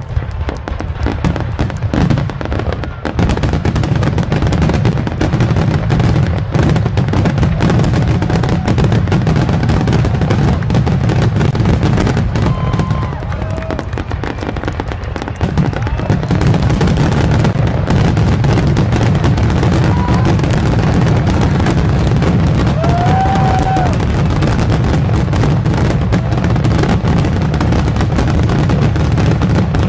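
Aerial firework shells launching and bursting in a rapid, continuous barrage of overlapping bangs and crackles over a heavy rumble. It gets louder and denser about halfway through.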